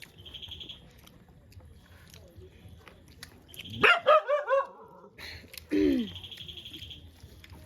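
A dog barking: a quick run of short barks about four seconds in, then another bark near six seconds.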